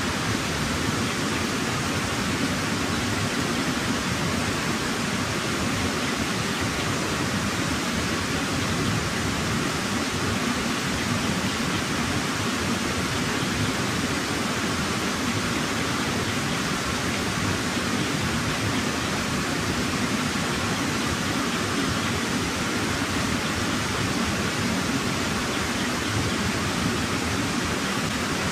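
Steady, even rushing noise that never changes, with no distinct knocks, crackles or breaths standing out.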